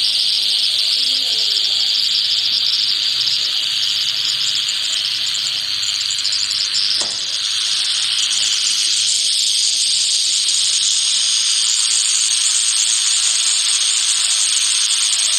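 Timber rattlesnake rattling its tail: a steady, high buzz that falters for a moment about seven seconds in.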